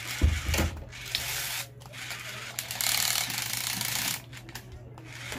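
Remote-control toy fighting robot's geared motors whirring and clicking as it is driven, in two spells, the second about two and a half seconds long. A thump sounds just after the start.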